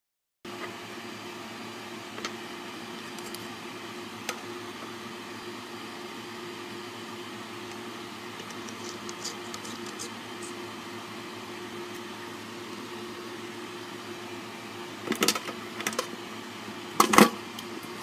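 A steady background hum with one low tone. Two light clicks early, then several sharp knocks and clatters near the end as a plastic quick-connect adapter is handled and fitted onto a metal kitchen faucet.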